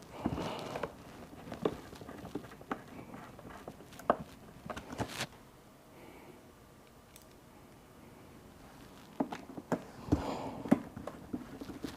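Scattered light clicks and taps of small Phillips screws being handled and set into a plastic fairing panel, with a quiet pause midway.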